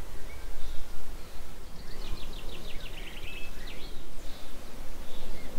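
A songbird sings one phrase of short, quickly repeated high notes lasting about two seconds, starting about two seconds in, over a steady low rumble.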